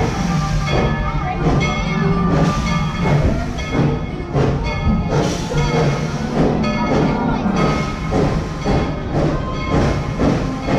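Music with a regular beat, over the running of a moving passenger train.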